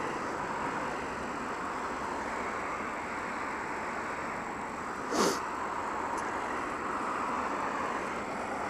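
Steady riding noise from a Honda Varadero 125 motorcycle, engine and wind blended into an even hiss on the bike-mounted mic. A short, sharp noise cuts through about five seconds in.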